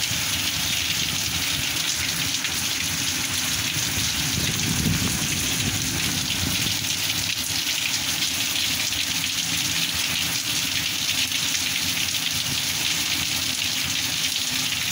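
Heavy rain pouring steadily onto roofs and a flooded street, an even, unbroken downpour.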